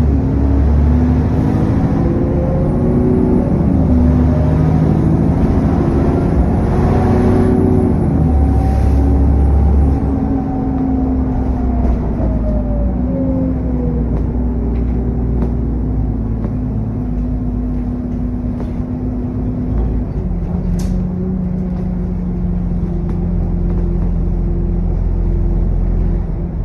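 Diesel bus engine heard from on board, pulling hard through its gears with a turbocharger whine that rises and then falls away as the throttle is eased about ten seconds in. The engine then settles to a lower, steady drone, with one sharp click near the end.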